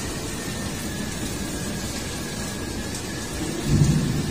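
Heavy rain pouring steadily in a strong storm, with a low rumble of thunder swelling near the end.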